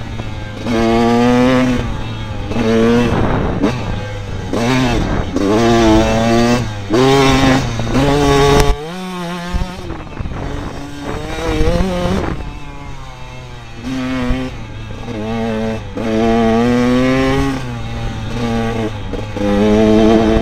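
TM Racing 125 two-stroke dirt bike engine, recorded from a helmet camera, revving up and falling back again and again as the rider works the throttle along the trail. Around nine seconds in, the engine note briefly falls away.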